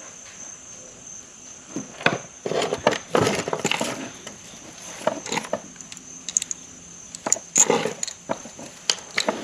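Buttons, thread spools and small metal parts clicking and rattling in a sewing machine drawer as a hand rummages through them, in irregular clusters from about two seconds in. A steady high insect chirring runs underneath.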